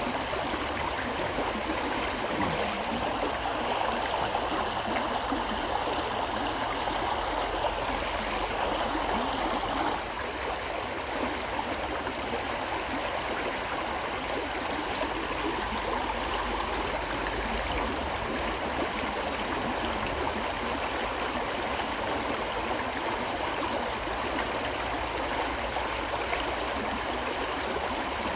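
Forest river flowing steadily: a continuous rush and gurgle of water, dropping a little in level about ten seconds in.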